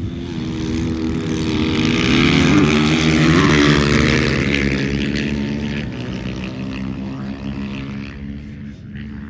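Dirt bike engine passing by on the ice, growing louder to a peak about three seconds in, its pitch bending as it goes by, then fading away.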